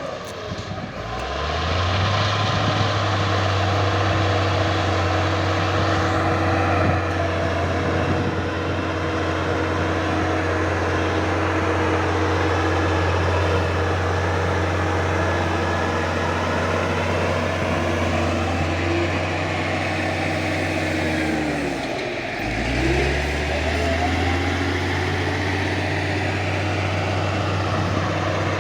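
Cat D6G bulldozer's diesel engine running steadily at working revs. Twice, once near the start and again about 22 seconds in, the revs sag and then climb back up.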